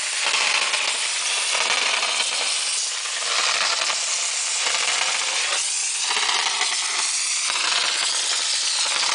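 Mortar spraying from a small 100 V mortar pump's spray gun: a steady, loud hiss of compressed air with a gritty spatter, swelling and easing slightly now and then.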